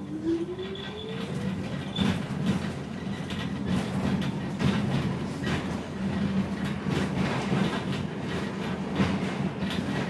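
New York City subway A train running, heard from inside the car: a whine rising in pitch over the first two seconds, then a steady rumble with the wheels clattering over the rails.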